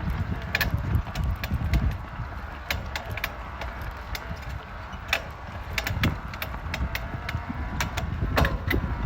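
Specialized Levo electric mountain bike clunking, clanking and creaking: irregular sharp knocks several times a second over a low rumble. The noise is a fault in the bike.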